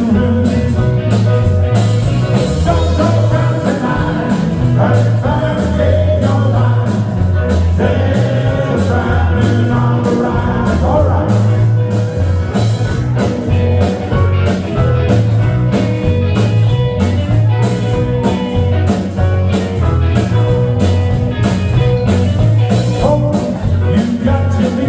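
Rock band playing with singing over a repeating bass line and a steady drum beat.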